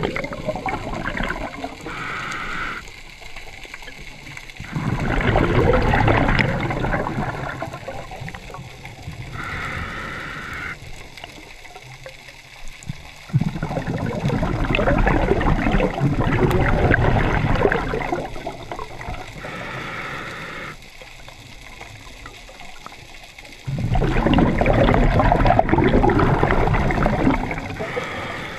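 Scuba diver breathing through a regulator underwater: a short hissing inhale, then several seconds of exhaled bubbles, which are the loudest part. The cycle repeats three times, about every ten seconds.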